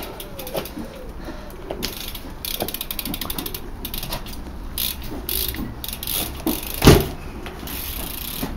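BMX rear hub ratcheting as the bike coasts, in runs of fast, even clicks. One heavy thump about seven seconds in is the loudest sound.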